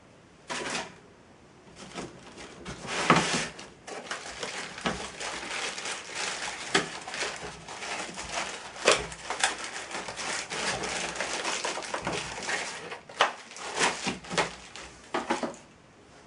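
Irregular knocks, clicks and rustling of things being handled, in quick clusters from about half a second in until shortly before the end.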